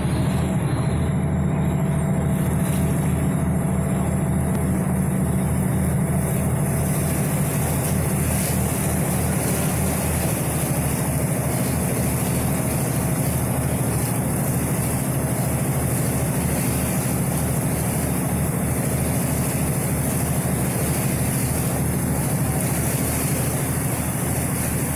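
Engine of a Chao Phraya river ferry running steadily under way, a low drone with water and wind rushing over it; the engine's tone changes slightly about ten seconds in.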